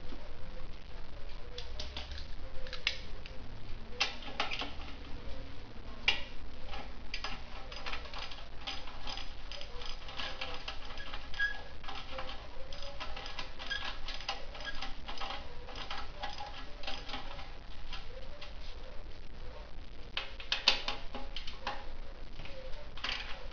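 Hand-tool work on a motorcycle exhaust: runs of rapid, light clicking like a ratchet wrench being worked, broken by a few sharper knocks.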